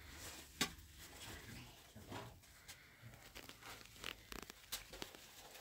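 Faint, scattered clicks and rustles of a meal: spoons scraping and tapping on plates and thin dry flatbread being torn, with a sharper click about half a second in.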